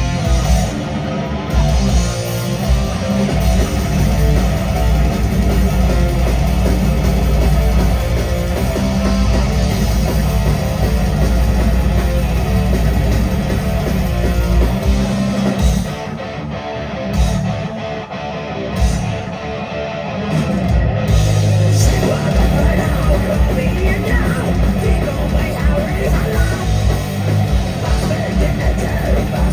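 A rock band playing live and loud, with distorted electric guitars, bass and drums. A few seconds past the middle the sound thins into a sparser break, then the full band comes back in.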